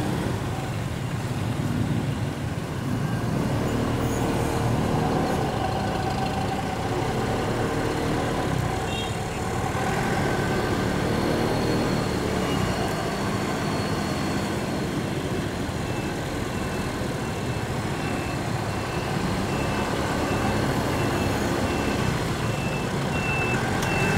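Motorcycle engine running during a ride through road traffic, with trucks nearby. About two-thirds of the way in a high electronic beeping starts, about two beeps a second.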